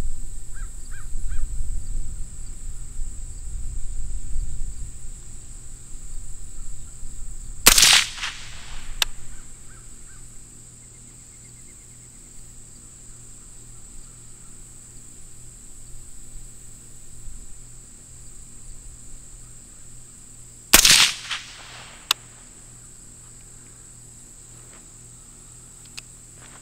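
Two shots from a suppressed .223/5.56 AR-15 rifle, about thirteen seconds apart, each a sharp report with a brief echo. Crickets chirr steadily behind them.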